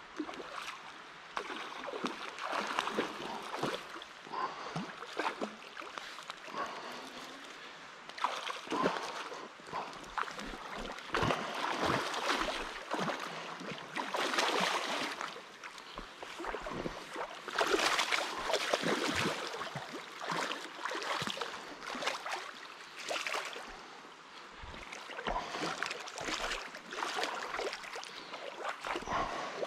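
Hooked salmon thrashing and splashing at the surface of a shallow river as it is played on a rod, over the steady rush of the current. The splashes come in irregular bursts, loudest around the middle.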